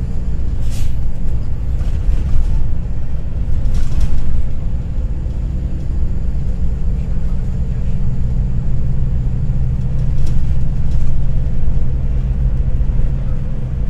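Steady low engine and road rumble inside a bus cabin, with a few brief rattles.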